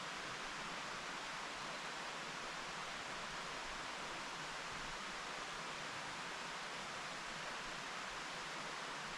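Mountain stream flowing in a steady, even rush of water.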